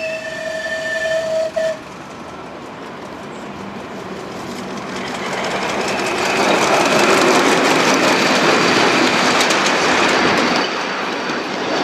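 Miniature passenger-hauling railway locomotive sounding a single steady whistle for nearly two seconds, then its freight train approaching and running close past, the wagon wheels clicking over the rail joints, loudest as the wagons go by and easing off near the end.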